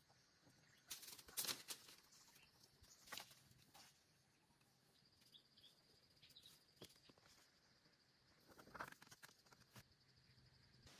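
Near silence with a few faint, short rustles and knocks, about a second in, around three seconds in, and again near nine seconds.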